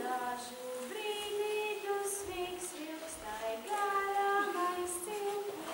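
A girl singing a simple melody in long held notes.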